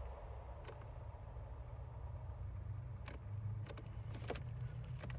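Something under the dashboard of a 1983 Ferrari 308 QV clicking with the ignition on: a handful of sharp clicks at irregular intervals over a low steady hum. The cause is unknown; it appears in testing the car's electrics.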